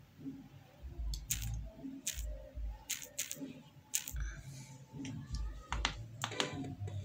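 Irregular sharp clicks and taps from someone working a device by hand, about a dozen, some in quick pairs, with dull low bumps among them.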